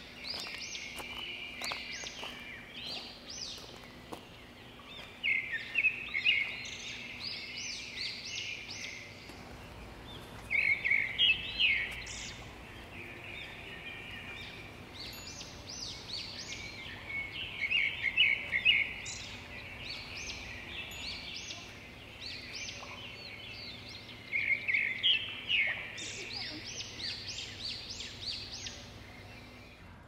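Several songbirds singing, with bursts of rapid chirps and trills that come back every few seconds and overlap one another.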